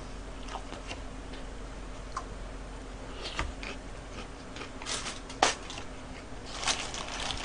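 Quiet room tone with a low hum, broken by a few short paper crinkles and light clicks as the burger's paper wrapping is handled, the clearest about five seconds in.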